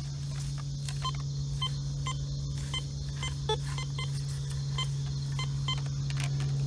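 A metal detector giving a string of short, high beeps, roughly two a second, as it is swept over a buried metal target, over a steady low hum.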